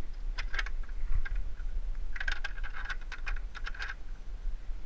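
A small metal fitting at the transom of a Yamaha AR210 jet boat being worked by hand: a few light clicks, then a quick run of about seven clicks a second for a couple of seconds, like a ratchet or threads being turned.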